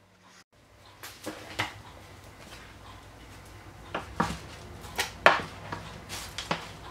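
Hands freeing proofed pizza dough balls from a floured metal baking tray: a scatter of short knocks and scrapes against the tray, the loudest a little past five seconds in.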